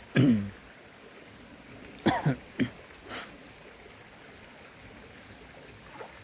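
Short vocal sounds from a person, not words: a loud falling cry near the start, then three quick cough-like sounds about two seconds in and a breathy one a second later, over a faint steady hiss of water.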